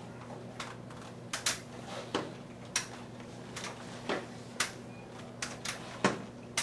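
Aluminium underarm crutches clicking and knocking on a hard floor with the steps of a child walking on them, in an uneven walking rhythm of sharp knocks, over a steady low hum.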